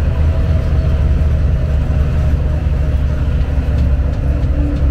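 Steady low rumble of a tourist road train rolling along a paved road: engine and tyre noise heard from inside an open-sided carriage.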